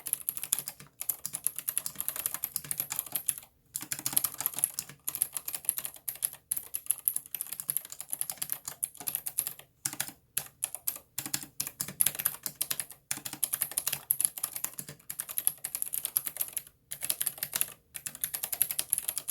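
Fast typing on an aluminium-case mechanical keyboard with clicky blue switches and PBT keycaps: quick runs of sharp clicky keystrokes broken by brief pauses.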